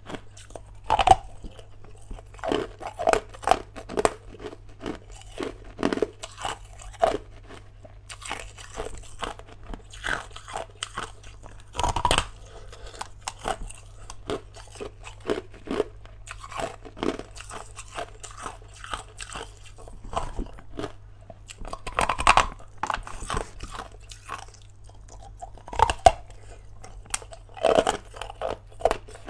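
Hard ice being bitten and chewed close to the microphone: a steady run of sharp crunches and cracks at irregular intervals, with the loudest bites about a second in, near the middle, and twice more toward the end.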